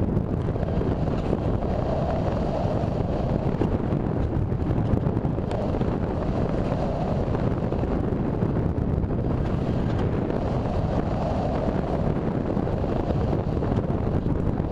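Airflow rushing over the microphone of a camera riding on an RC sailplane in gliding flight: a steady, low rush of wind with no motor tone.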